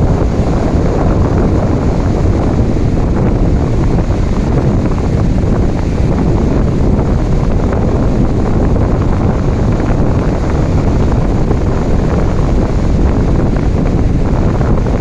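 Steady, loud rushing of ocean waves mixed with falling rain, an even wash of water noise with no separate breakers standing out.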